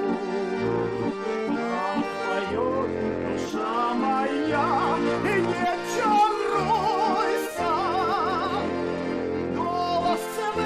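Music: the instrumental close of a folk-style song, with accordion and a wavering vibrato melody line.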